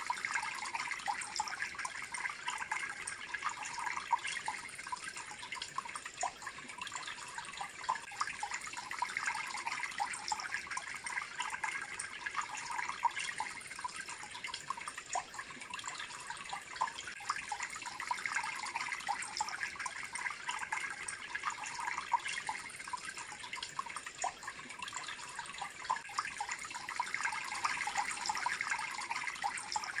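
Steady trickling and splashing of water running through a tiered cement bird bath fountain, with many small drips.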